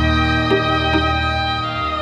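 Background music of slow, held chords, with a couple of new notes coming in about halfway.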